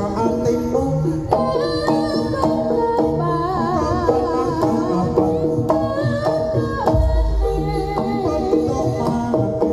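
Javanese jaranan music: drums and tuned percussion keep a steady beat under a wavering melody line, with a deep gong stroke about seven seconds in.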